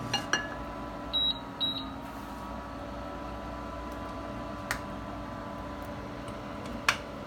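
Steady hum of an electric cooktop running under an empty nonstick pan, with two short high beeps about a second in. A few sharp knocks from a wooden spatula against the pan as butter goes in, the loudest near the end.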